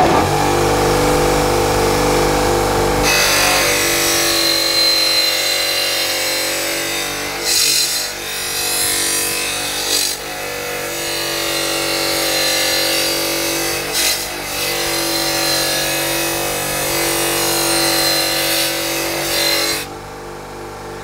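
A 6-inch bench grinder running with a wire wheel. From about three seconds in, a metal base plate is pressed against the spinning wheel to strip rust and paint, making a loud, continuous harsh scrubbing with a few brief dips as the plate is moved. The scrubbing stops near the end, leaving the grinder motor running.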